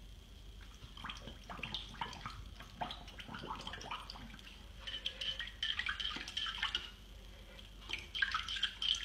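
A puppy pawing and nosing at the water in its bowl, making small irregular splashes and drips. The splashing is busier about five seconds in and again near the end.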